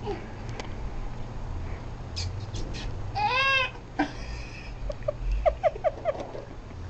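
A baby's voice: a drawn-out whine that rises and falls about three seconds in, then a quick string of short squeals near the end.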